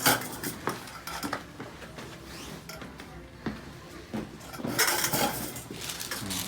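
Scattered sharp clicks and knocks with rustling as a patient is handled on a chiropractic table, then a louder cluster of clicks and rustling about five seconds in.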